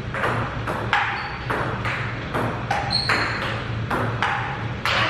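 Table tennis rally: a plastic ping-pong ball clicking off paddles and table about two to three times a second, with a low steady hum underneath.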